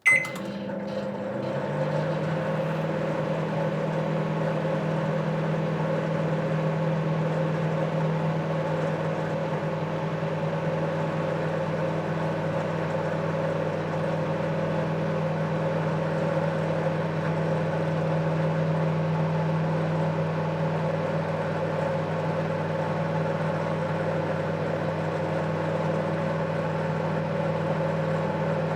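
Microwave oven running: a short beep as it starts, then a steady electrical hum with the fan and turntable motor that settles within the first two seconds and holds evenly.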